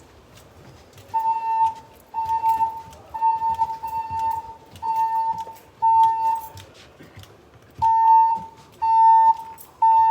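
Building fire alarm sounding its evacuation tone through the voice-evacuation speakers: a loud, steady-pitched beep repeated about once a second, with a longer pause shortly after the start and another about two-thirds of the way through.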